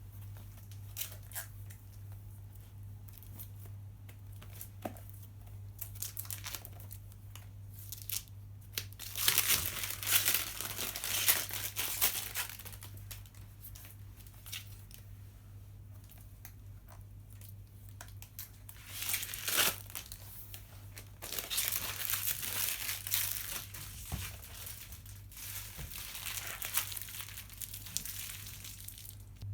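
Packaging being handled, crinkling and tearing in irregular bursts with scattered small clicks, over a steady low electrical hum.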